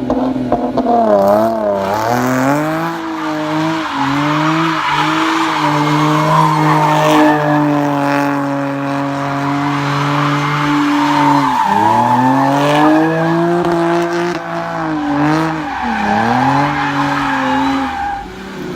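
Car engine revving, its pitch rising and falling and holding steady for a few seconds in the middle, with tyre squeal.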